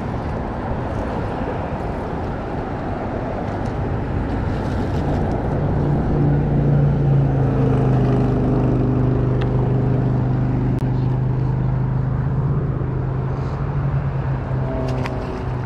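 Road traffic from the adjacent highway: a steady wash of passing-car noise, with a vehicle engine's low drone coming in about five seconds in and holding.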